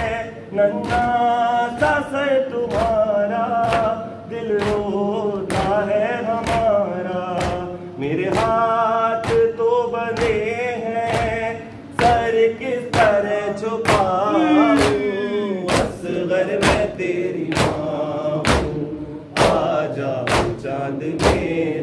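Men chanting a nauha, a Muharram lament, to a slow melody. Regular chest-beating (matam) thumps keep time about every two-thirds of a second.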